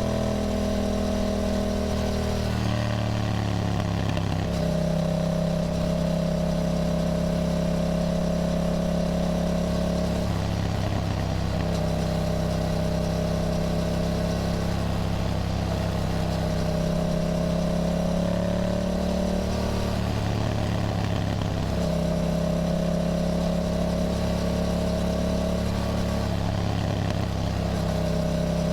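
Yamaha motorcycle engine running under way at fairly steady revs, its note breaking up and settling again about four times as the revs change.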